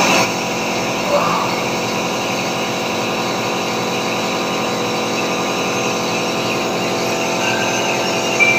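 Steady hum and hiss of a small electric motor running.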